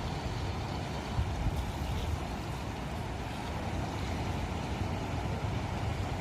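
Steady rumbling roar of floodwater pouring through the fully opened gates of a river weir.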